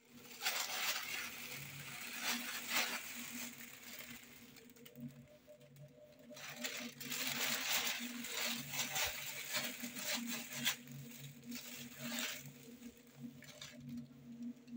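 Thin plastic carrier bag rustling and crinkling as a cat climbs in and turns around inside it, in two spells with a lull about four seconds in, the second one longer.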